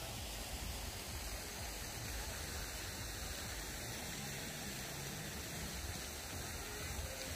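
Steady rushing splash of a fountain's tall water jet falling back into its basin, with an uneven low rumble underneath.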